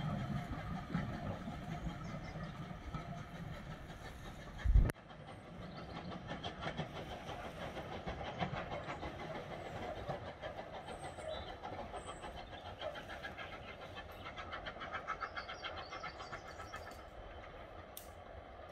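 Steam train pulling away and fading into the distance, its locomotive's exhaust beating in a steady rhythm over the clatter of the carriages. A single loud low thump about five seconds in, and a sharp click near the end.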